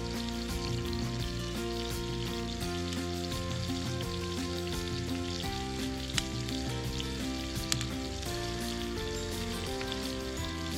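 Food frying with a steady sizzle and crackle, under background music of held notes that change every half second or so. Two sharp clicks stand out, about six and about seven and a half seconds in.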